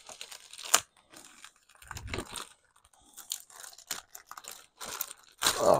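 Packaging being opened by hand: crinkling, crunching and tearing with scattered clicks, a sharp click about a second in and a louder burst of rustling near the end.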